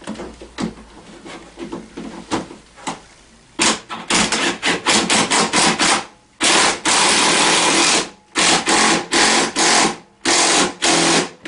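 Socket ratchet clicking in quick back-and-forth strokes as it tightens the nut on a scooter's steering-column bolt. It is faint at first, then from about three and a half seconds in comes in loud, dense runs of clicking.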